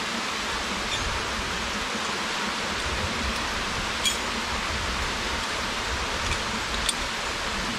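Steady rush of a waterfall or river in a rainforest canyon, an even hiss with no pauses. A couple of brief sharp clicks sound about halfway through and near the end.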